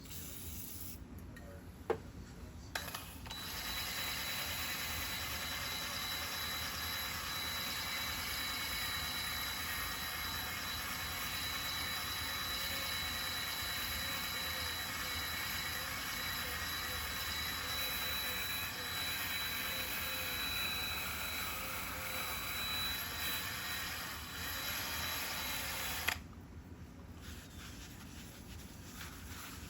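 A power tool spinning a wire wheel runs steadily for about twenty seconds, with a thin high whine through it, scrubbing heavy carbon deposits off the Onan P218G engine's parts. A sharp knock comes about two seconds in, just before the wheel starts, and the wheel stops near the end.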